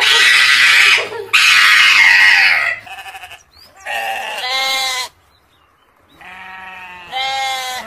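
An animal bleating over and over: two long, loud calls, then three shorter, quavering bleats with gaps between them.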